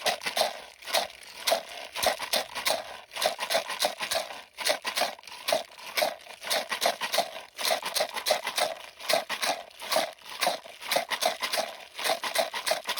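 A homemade instrument built from recycled materials, played with quick, uneven rustling and rattling strokes, several a second, without a break.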